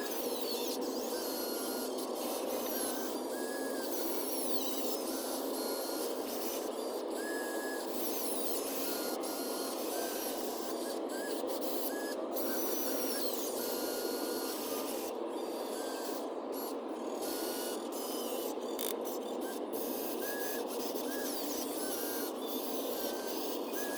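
Steady mechanical whirring with short high chirps and blips: the small electric motors and gears of RC construction machines working, pitched up in fast-forwarded timelapse audio.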